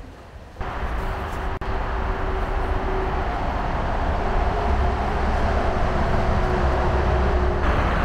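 Steady road traffic and vehicle noise with a deep rumble, cutting in abruptly about half a second in.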